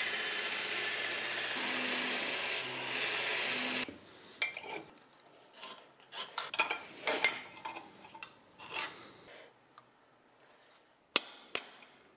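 Belt grinder sanding the edge of a steel cover plate, a steady grinding for about four seconds that stops abruptly. A scriber then scrapes and clicks across the plate in short strokes. Two sharp taps near the end mark its centre with a punch.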